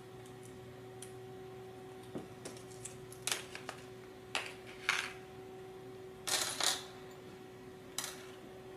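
Small plastic zip-lock bag crinkling as it is handled and opened, and small metal screws and nuts clicking as they are tipped out onto a tabletop: a few short separate bursts of rustle and clicks over a faint steady hum.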